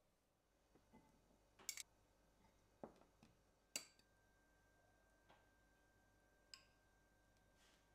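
Near silence broken by about five faint, sharp clicks and taps.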